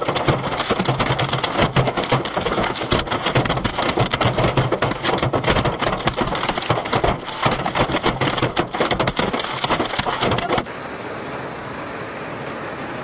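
Hailstones pelting a hard surface in a dense, irregular clatter of impacts. About ten and a half seconds in, it cuts off abruptly to a quieter steady rushing hiss.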